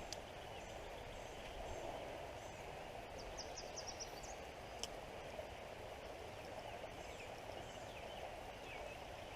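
Creek water running with a steady, faint rush, and a bird chirping a quick series of high notes about three seconds in.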